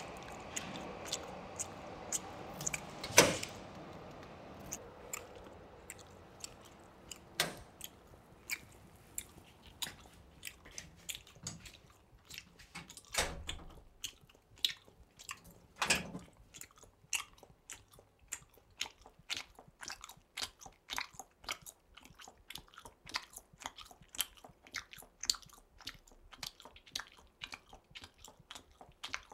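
A person chewing with crunching, clicking chews, sparse at first and growing into a quick, dense run in the second half. A single sharp knock comes about three seconds in, and a couple of duller thumps around the middle.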